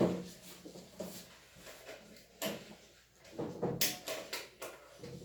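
Several short knocks and clicks of objects being handled, the loudest one right at the start and a quick cluster of them about two and a half to four and a half seconds in.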